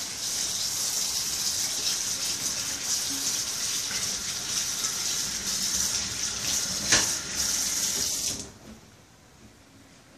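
Water running hard from a tap in a steady hiss, with one sharp knock about seven seconds in. The flow stops about eight and a half seconds in.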